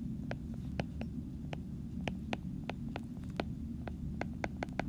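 Stylus tip tapping and ticking on an iPad's glass screen while handwriting, as a string of light, irregular clicks a few a second, over a steady low background hum.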